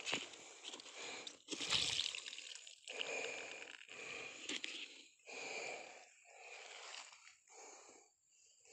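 Footsteps crunching and rustling through fallen leaf litter, about one step a second, with the loudest rustle about two seconds in.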